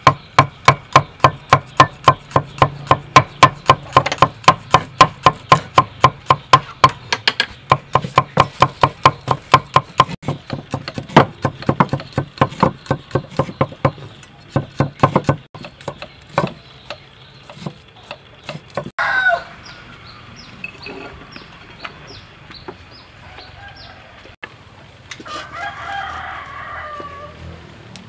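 A steel cleaver chopping garlic cloves on a wooden chopping board: rapid chops about four a second that thin out and stop about halfway through. A rooster then crows, with another fowl call near the end.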